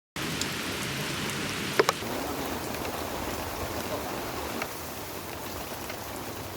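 Heavy rain falling steadily, with two sharp knocks close together about two seconds in.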